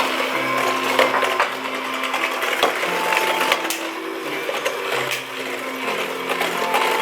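KitchenAid stand mixer running, its motor humming steadily while the beater mixes cookie dough in the metal bowl, with occasional clicks and knocks.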